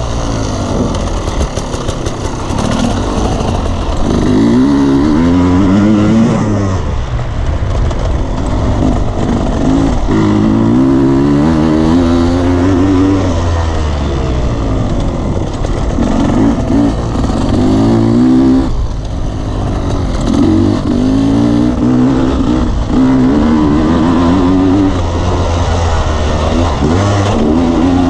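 Off-road motorcycle engine under way, its revs climbing and dropping again and again as the rider accelerates and eases off along a dirt trail.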